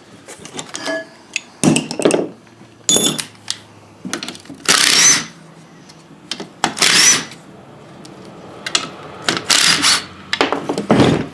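Cordless power driver with a socket running in several short bursts, backing out the 10 mm bolts that hold an electric cooling fan motor to its plastic fan frame, with small clicks of the socket and bolts in between.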